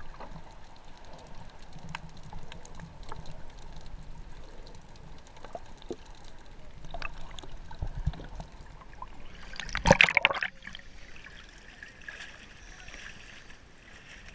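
Water sounds picked up by an action camera held underwater: muffled sloshing with small scattered clicks. About ten seconds in comes a loud splash as the camera comes out of the water, followed by quieter water sounds in open air.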